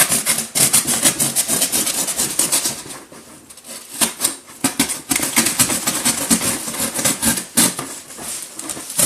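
Knife sawing through a sheet of paper and cardboard on a shipping box: a rapid run of scratchy, rasping strokes, easing off briefly about three seconds in, then resuming.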